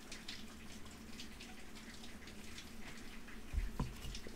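Faint scattered ticks and clicks over a low steady hum, with a short dull thump about three and a half seconds in.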